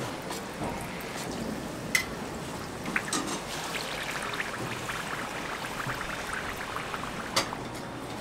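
Hot oil sizzling and crackling on a griddle as a hotteok is pressed flat with a metal press, with a few sharp clicks scattered through it.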